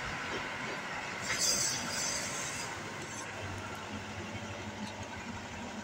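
Bimo 102 crawler rice combine harvester running and creeping along on its tracks: a steady engine-and-machinery rumble with a brief high hiss about a second and a half in.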